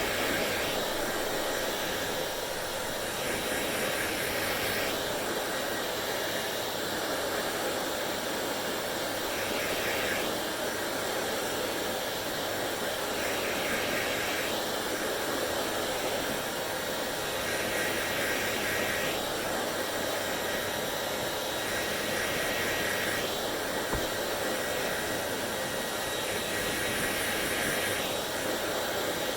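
Hair dryer blowing steadily, its hiss changing in tone every few seconds.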